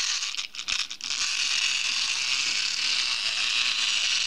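Cheap plastic clockwork toy train's wind-up motor whirring steadily as the spring runs down, with a brief break about half a second in. The train is struggling to pull itself along the track.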